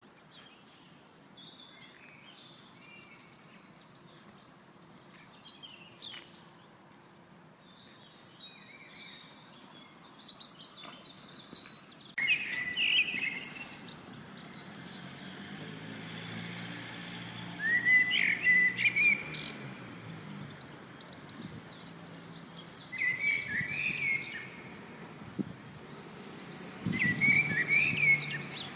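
Birds chirping and singing: many short high chirps, with louder warbling song phrases coming every few seconds from a little under halfway through.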